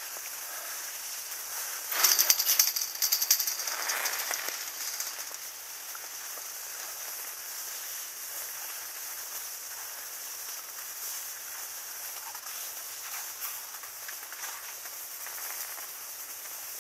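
Skis hissing and scraping over packed snow while being pulled up a drag lift, with a louder rattling clatter for a few seconds starting about two seconds in.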